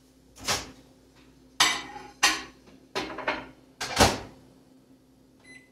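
Over-the-range microwave oven being loaded: a series of about five knocks and clunks as a plate is set inside and the door is shut, the loudest about four seconds in. The first high keypad beep of the timer being set starts at the very end.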